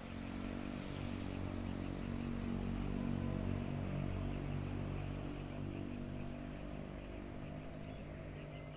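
A motor engine's low drone, swelling to its loudest about three seconds in and then slowly fading, as of something passing by.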